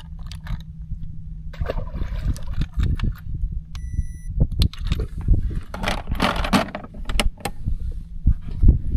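Clicking and clinking of a red fish lip grip and a handheld digital fish scale being handled, with one short electronic beep from the scale about four seconds in. A low steady rumble runs underneath.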